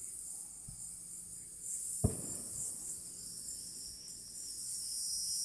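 A steady, high-pitched chorus of insects singing, with a single thump about two seconds in.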